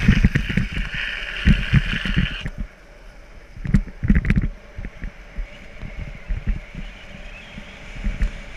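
Wind buffeting the microphone at speed on a downhill run, with irregular low thumps. A steady high screech runs through the first two and a half seconds and stops abruptly, and two short squeaks follow about four seconds in.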